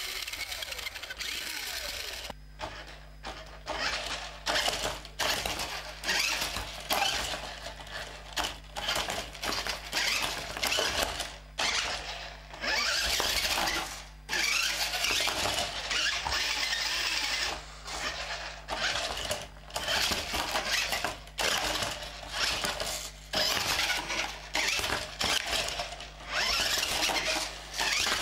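Maisto Extreme Beast toy RC car's electric drive motor and gearbox whirring in repeated short bursts of throttle, each a second or so, with brief pauses between and a longer run of about three seconds around the middle.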